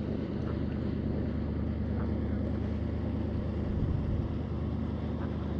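Steady low engine hum, running evenly without change.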